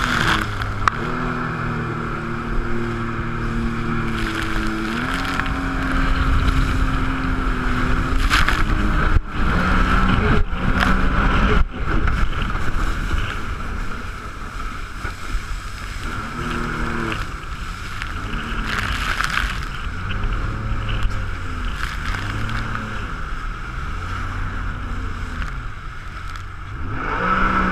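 Jet ski engine running, its pitch stepping up and down and then rising and falling again and again as the throttle is worked. There are a few sharp knocks about nine to twelve seconds in.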